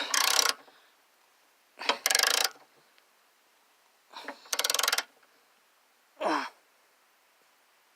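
Half-inch ratchet clicking in three short runs of fast clicks as the tow hook's nuts are cranked tight, with short strained grunts of effort in between, a falling one near the end.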